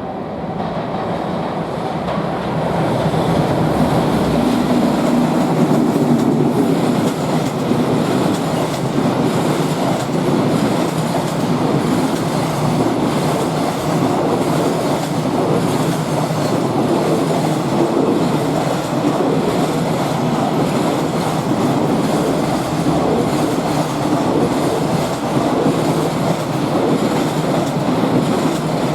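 JR freight train passing close by, its wagons' wheels clattering and rumbling on the rails. It grows louder over the first few seconds as it draws near, then holds a steady, loud run of wagons.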